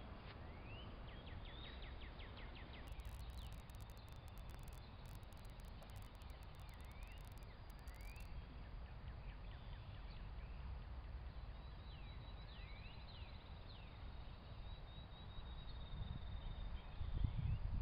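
Birds chirping in the woods: short rising calls, some in quick series, and a high thin trill about two thirds of the way through, over a low steady rumble.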